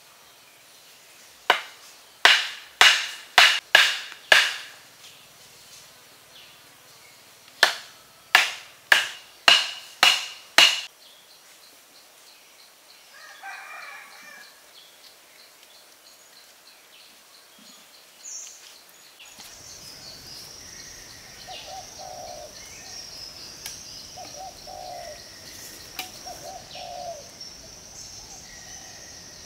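Two quick runs of six sharp knocks each, about half a second apart, each with a short ringing tone: a blade chopping at wood. Later a steady high hiss comes in, with short bird calls repeating every couple of seconds.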